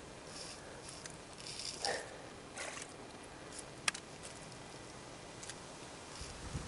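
Intermittent squishing and scraping handling sounds with a sharp click about four seconds in.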